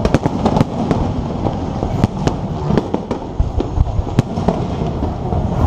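Fireworks bursting in quick, irregular succession: many sharp bangs and cracks, several a second, over a continuous rumble.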